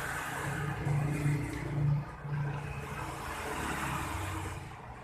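A motor vehicle engine running unevenly, with louder surges about one and two seconds in.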